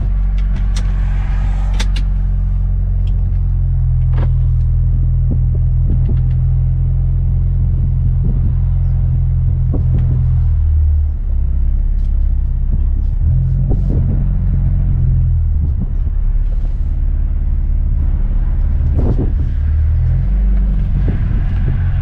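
Mercedes-AMG A35 sedan's turbocharged 2.0-litre four-cylinder engine and exhaust, heard from inside the cabin while driving: a steady low drone with road noise, its pitch shifting a few times around the middle and again near the end.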